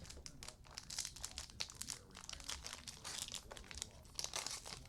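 Plastic-foil wrapper of a trading card pack crinkling and crackling as it is handled and torn open, in many small irregular crackles.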